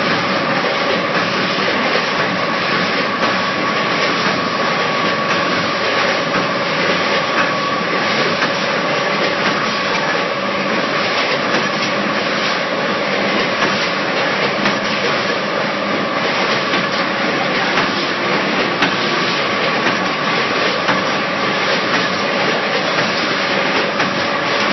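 Electronic multihead weigher and vertical bagging machine packing potato chips, running steadily: a constant mechanical din with a steady whine and a continuous patter of small clicks and clacks.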